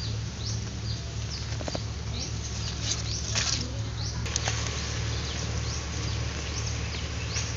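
Small birds chirping over and over in short falling notes, over a steady low hum. Sweet potato vines and soil are rustled by hand, loudest a little over three seconds in.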